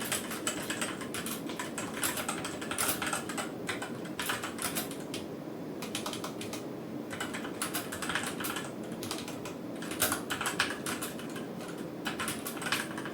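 Typing on a Redragon Kumara mechanical keyboard fitted with red linear switches and new keycaps: quick runs of key clacks with short pauses about halfway through.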